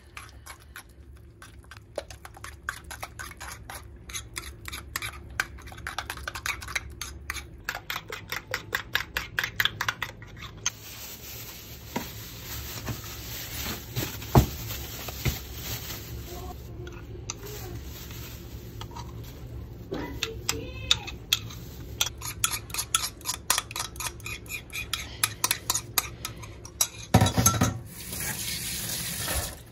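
A spoon clicking rapidly and regularly against a bowl while food is stirred and mixed, about four strokes a second in two long spells. A single sharp knock comes about halfway through, and a short louder clatter near the end.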